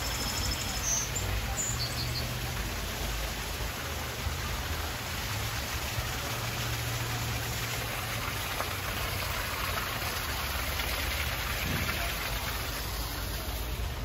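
Steady rushing of a small waterfall pouring into a pool, with a few short high bird chirps in the first couple of seconds and a low rumble underneath.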